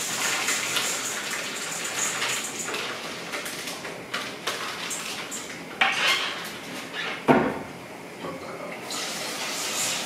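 Kitchen tap running into a sink while rice is rinsed in a pot, with clinks and clatter of pots and dishes. A loud clank about seven seconds in; the running water then drops away for a second or so and comes back near the end.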